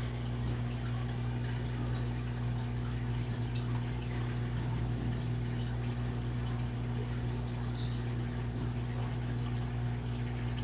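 Steady low hum with a fixed pitch, with faint water ticks and trickles over it.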